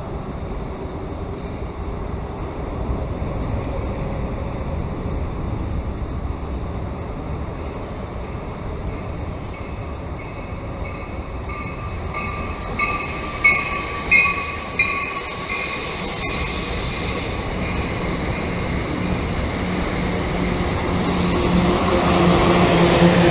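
NJ Transit push-pull commuter train rolling into the station cab car first, with a steady rumble of wheels on the rails. Around the middle comes a run of evenly pulsing high-pitched tones with brief hisses. Near the end the locomotive at the rear passes close, and its steady low hum grows loud.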